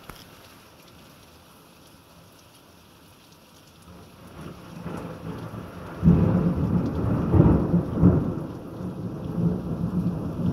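Thunder rolling in: a low rumble swells from about four seconds in, hits a sudden loud clap about six seconds in, then keeps rumbling with several peaks.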